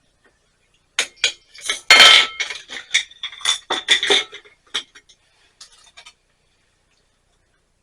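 Metal tea infuser and cup clinking together as they are handled: a quick series of sharp clinks with brief ringing over about four seconds, then a few faint ones.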